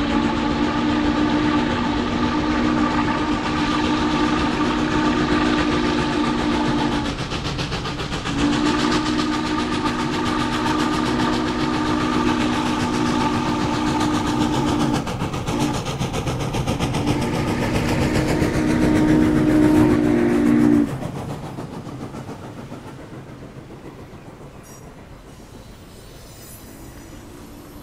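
N&W 611, a J-class 4-8-4 steam locomotive, working a train past with its chime steam whistle sounding long, long, short, long: the grade-crossing signal. When the whistle stops, about three-quarters of the way through, the passenger cars roll by with a softer clatter of wheels on rail.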